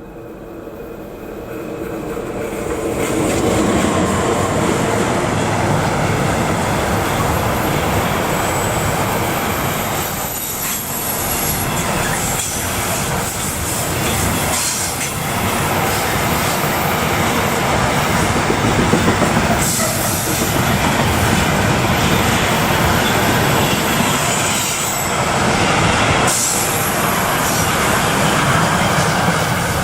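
A long freight train rolling past on the mountain line, the wagons' wheels rumbling and clattering over the rail joints. The sound swells over the first few seconds as it approaches, then stays loud. A thin, high wheel squeal comes and goes.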